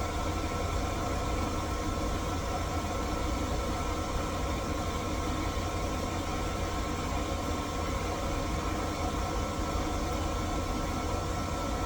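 Key-cutting machine motor running with a steady hum, during the cut that shortens the key's tip.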